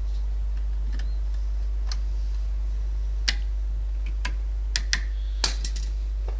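Sharp metallic clicks and taps of pliers and the steel anti-rattle spring clip against the front brake caliper of a 2007 Opel/Vauxhall Meriva as the clip's second end is levered into place. The clicks are scattered, with a pair just before five seconds in and the loudest just after, over a steady low hum.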